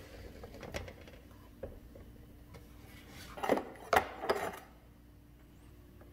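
Metal portafilter of a De'Longhi espresso machine being worked and locked into the group head with small scrapes and clicks. About three and a half seconds in, a glass cup is set down on the metal drip tray with a quick run of clinks, the loudest sounds here.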